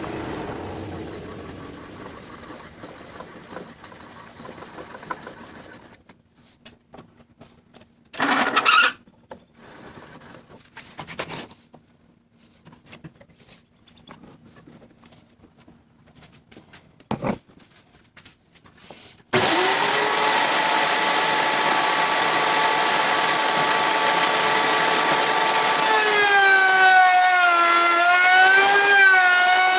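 Scattered clicks and short bursts of noise, then a handheld router in a shop-made router table switched on about two-thirds of the way in. The router runs with a steady high whine, and its pitch sags and recovers a few times near the end.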